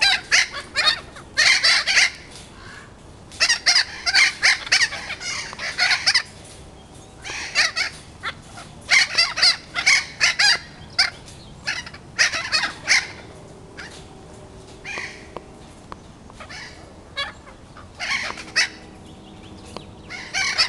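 Thick-billed parrots calling: bouts of rapid, repeated squawks, each lasting one to two seconds, with short pauses between them.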